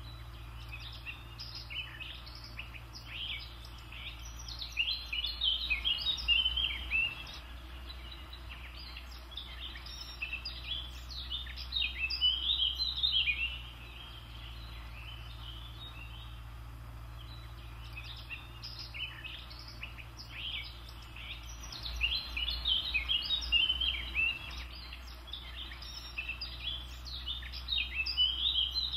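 A songbird singing in long phrases of rapid, high chirping notes, four bursts of a few seconds each with quieter gaps between.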